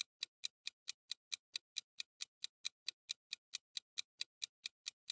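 Even, fast ticking of a clock-style timer sound effect, about four to five ticks a second, counting down the thinking time for a quiz question.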